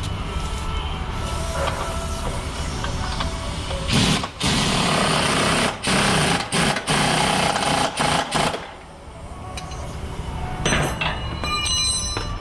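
Pneumatic impact wrench running in a series of short, loud rattling bursts from about four seconds in to about eight and a half seconds in, with brief pauses between them.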